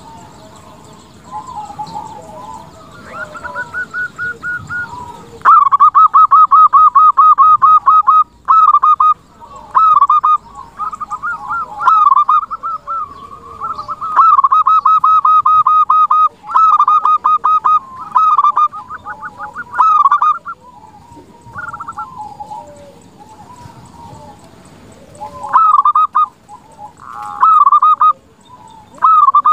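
Zebra dove (perkutut) cooing in quick strings of staccato notes, in bouts of a second or two repeated with short pauses. The loud bouts start about five seconds in, over fainter, lower calls.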